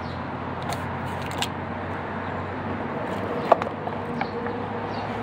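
Fuel nozzle and filler cap being handled at a car's filler neck after refuelling: a few irregular plastic and metal clicks and scrapes, the sharpest about three and a half seconds in, over a steady low hum.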